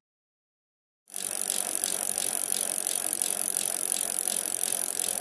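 Bicycle freewheel hub ticking rapidly and steadily, as a wheel coasts. It starts about a second in, after a short silence.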